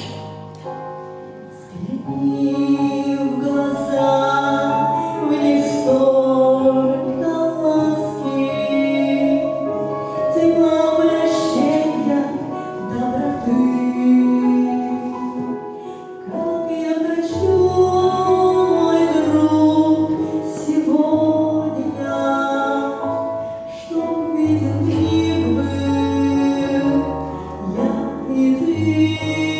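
A Christian song sung over keyboard accompaniment with sustained bass notes; the singing comes in about two seconds in.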